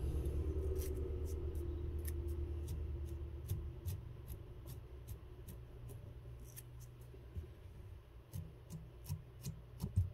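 A dubbing brush combing through the synthetic Laser Dub fibres at the head of an articulated streamer fly: short, light scratching strokes, a few a second. A low hum fades away over the first few seconds, and a sharper click comes near the end.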